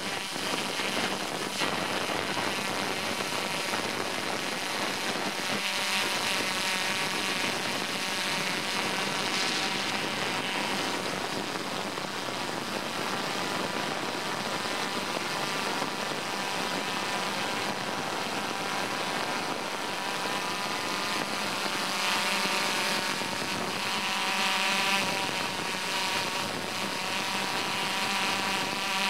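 Steady running of motors and propellers, a continuous drone with a whine of several high tones that grows somewhat stronger in the second half.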